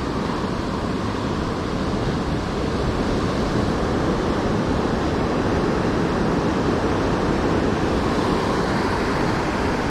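Steady noise of surf on the shore mixed with wind blowing across the microphone.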